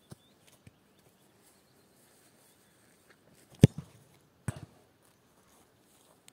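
A football kicked hard: one sharp, loud thud about three and a half seconds in, then a softer thud under a second later as the goalkeeper stops the ball.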